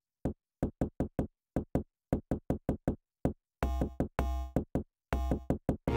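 Electronic trailer music: a stuttering string of short, clipped synthesizer hits with gaps of silence between them, joined by a few longer, bass-heavy chords from about three and a half seconds in.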